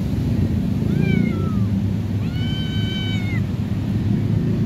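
Two high-pitched kitten meows, a short falling one and then a longer, level one, from stray kittens begging for food. A steady low rumble runs underneath.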